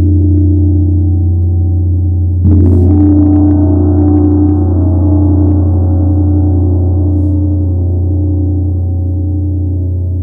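80 cm Tibetan gong struck with a soft round-headed mallet: a deep hum rings on, then a harder stroke about two and a half seconds in brings up a brighter shimmer that swells briefly and then fades slowly.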